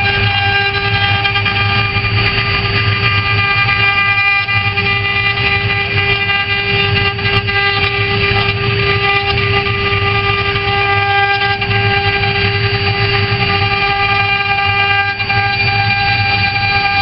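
The spindles of a four-head CNC router machine run with a steady high whine over a noisy rumble.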